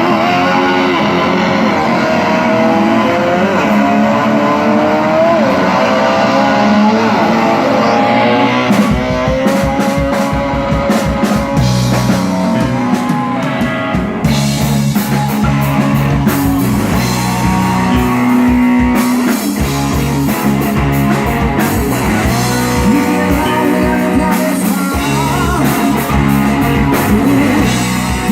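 Rock music: guitar playing sliding, gliding notes, joined by a full drum kit and bass about nine seconds in.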